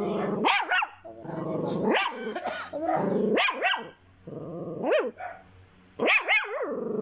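Small long-haired dog barking and whining in about five bouts, its calls rising and falling in pitch. It is frightened by fireworks going off outside.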